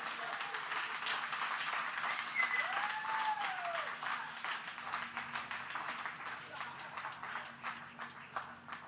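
A crowd applauding and cheering, with a couple of whoops in the first half, the clapping thinning out and fading toward the end.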